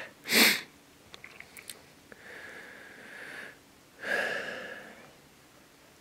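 A person near the microphone sniffs sharply, then breathes out twice, slowly and audibly. A few faint clicks come between the sniff and the breaths.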